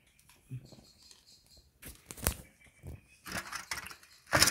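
Scattered light clicks, knocks and rustles of handling, with a sharp tap about two seconds in and a louder rustle near the end.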